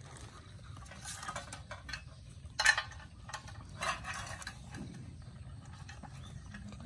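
Puppies eating from a stainless steel tray: irregular clicks and clinks of muzzles and food against the metal, the sharpest about two and a half seconds in.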